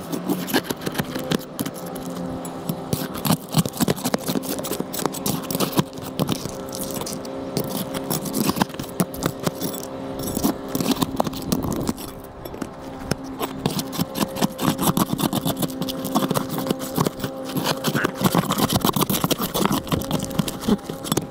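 Roof tear-off: dense, irregular scraping, clinking and knocking as asphalt shingles, nails and flashing are pried up around a sun tunnel, over a steady low hum.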